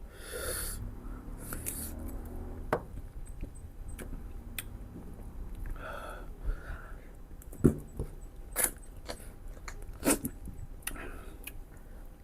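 Close-miked eating of mutton ribs: chewing and lip smacking with scattered sharp clicks, the loudest about two-thirds of the way through.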